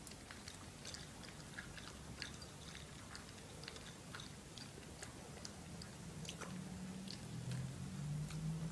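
Toy poodle crunching dry kibble from its bowl: irregular short crunches and clicks of chewing. A low steady hum comes in over the last few seconds and grows louder.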